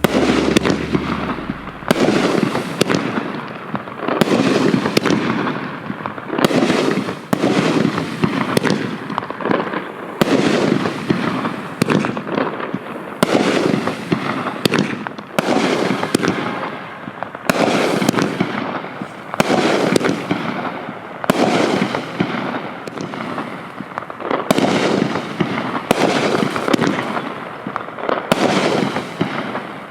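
Consumer aerial fireworks going off in a continuous string: sharp launch and burst reports about one or two a second, with crackling tails between them.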